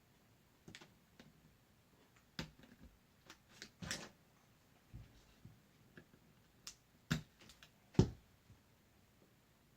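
Irregular small clicks, taps and knocks of hands handling an Acer C720 Chromebook's plastic parts and screws during disassembly, a dozen or so, the loudest about eight seconds in.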